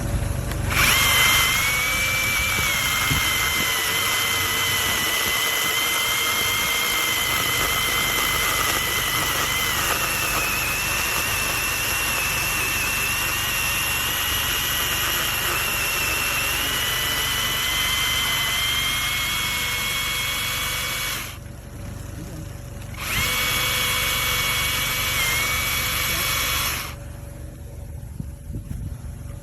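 TaskStar 8-inch cordless mini chainsaw's electric motor running with a steady high whine for about twenty seconds, its pitch dipping slightly partway through. It stops briefly, then runs again for about four seconds.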